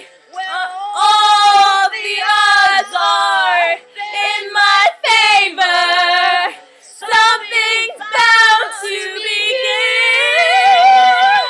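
Two girls singing a show tune together in loud phrases, holding long notes with vibrato. The last note climbs near the end.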